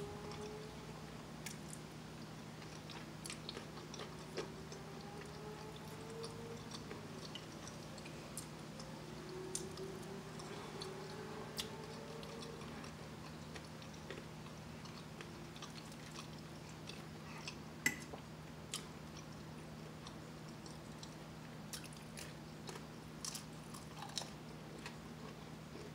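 A person chewing and eating breakfast food: wet mouth sounds with scattered sharp clicks, the loudest about eighteen seconds in, over a steady low hum.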